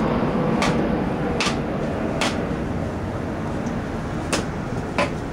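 A wooden baton striking the spine of a SOG Seal Pup Elite knife to split wood: five sharp knocks, three about a second apart, a pause, then two more near the end. A steady low rumble in the background slowly fades.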